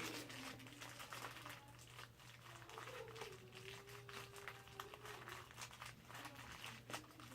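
Faint crinkling and scattered small clicks from hands handling computer parts during a PC build, over a steady low hum.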